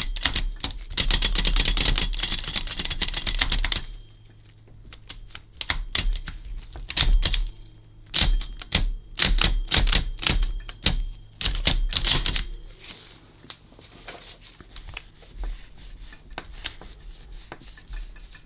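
Facit C1-13 mechanical calculator's mechanism clattering as it is worked over and over, its stiff parts starting to loosen up. A dense run of clicks for the first four seconds gives way to separate clacks, then quieter small clicks after about twelve seconds.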